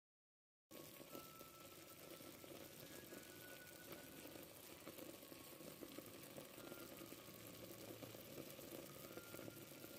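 Faint, steady simmering of a pot of pork ribs with tomatoes, starting about a second in after dead silence.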